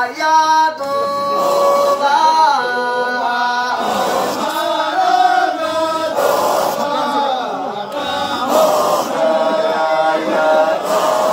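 Men's voices chanting a Qadiriyya Sufi dhikr, a melodic chant with held and bending notes.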